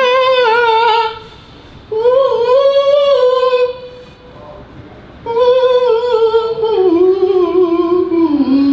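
A man singing unaccompanied in a high voice: three long held phrases with vibrato, separated by short breaths, the last one sliding down in pitch near the end.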